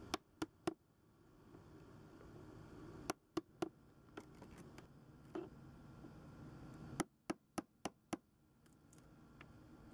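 Hammer striking a steel chisel to chip out the wet wooden core of a fiberglass boat deck: short runs of sharp knocks, a few blows at a time, with pauses between.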